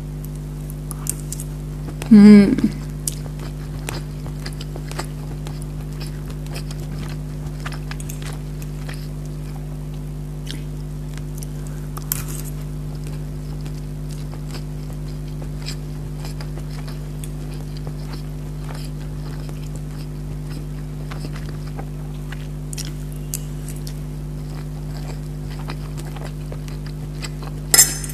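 A person eating with a fork from plates: faint chewing and small clicks of the fork on the plates over a steady background hum. A short loud pitched sound comes about two seconds in, and a sharp clatter just before the end.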